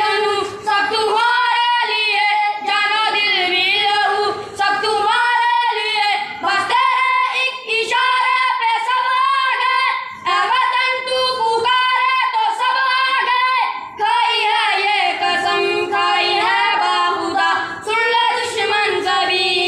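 Schoolboys singing a tarana together in long melodic phrases, with short breaks every few seconds.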